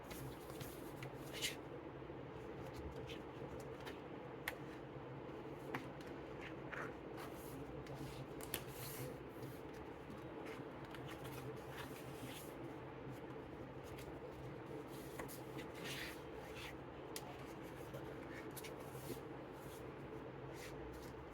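Paper and card flaps of a lift-the-flap book being lifted and handled: scattered soft rustles and light clicks, a few sharper, over a steady low room hum.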